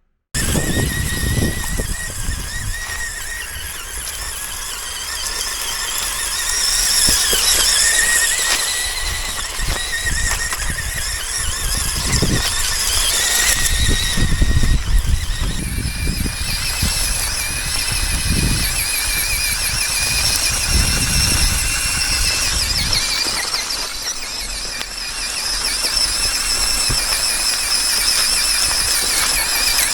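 Radio-controlled car's small electric motor and gears whining, the pitch wavering up and down as the throttle is worked, over a low rumble.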